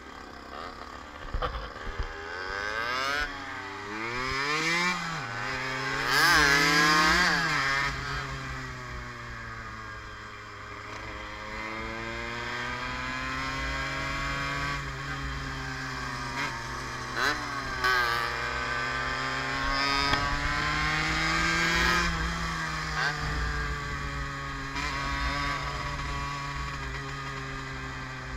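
Small two-stroke single of a Yamaha DT50 motorcycle under way: it revs up and drops in pitch at two gear changes in the first several seconds, then cruises with the revs slowly rising and falling. Wind rumbles on the microphone underneath.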